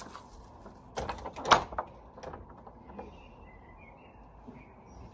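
Garden gate swung by a broken door closer, with a cluster of clattering knocks about a second in and one loud clunk just after. Birds chirp faintly afterwards.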